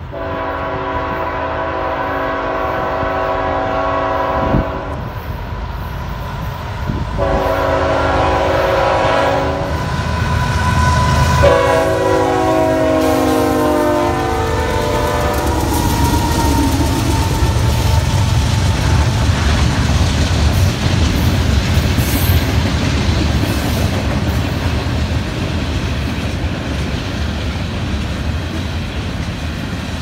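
A Union Pacific GE ET44AH diesel locomotive sounds its air horn in three long blasts as it approaches, and the last blast drops in pitch as it passes. After that come the locomotives' deep engine rumble and the steady clickety-clack of the covered hopper cars' wheels rolling by.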